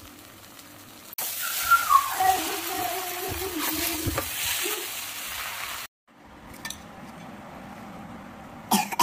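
Stir-fried vegetable noodles sizzling in a hot iron wok as they are tossed and stirred with a spatula. The sizzle starts suddenly about a second in and cuts off sharply about six seconds in, leaving a quieter stretch with a few clicks.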